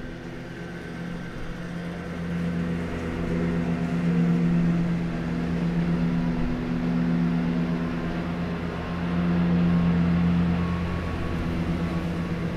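Leaf blower running outside the window, a steady engine drone that swells and eases off in waves, loudest about four and ten seconds in.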